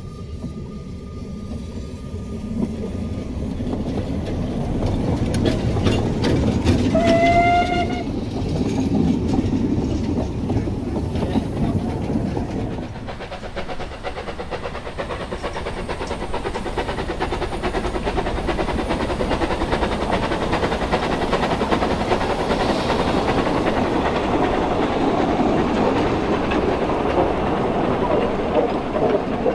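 Narrow-gauge steam locomotive and its coaches running past, with wheels clattering over the rail joints, growing louder over the first several seconds. One short steam whistle sounds about seven seconds in.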